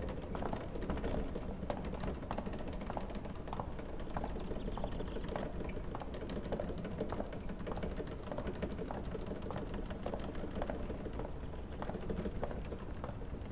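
Footsteps clicking on a hard polished floor: a long string of sharp, uneven clicks over a low steady background.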